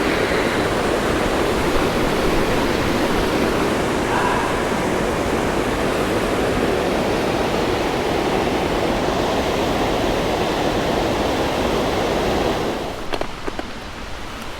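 Rushing water of a waterfall, a steady loud hiss of falling water that drops away about thirteen seconds in, leaving a few light clicks.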